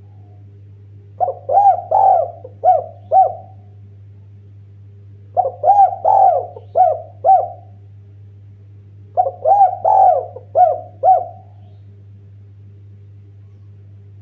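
Spotted dove cooing: three phrases of about five or six short rising-and-falling coos each, a couple of seconds apart, over a steady low hum.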